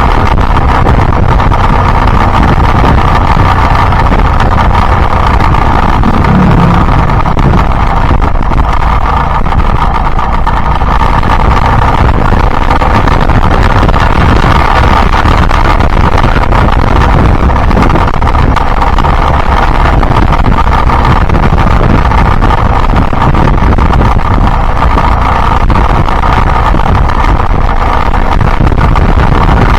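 Yamaha Byson motorcycle's single-cylinder engine running steadily while riding, with wind rushing over the microphone.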